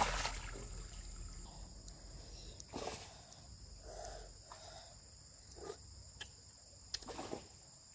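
Insects chirring steadily at a high pitch, with a few faint short noises about three seconds in and again near the end.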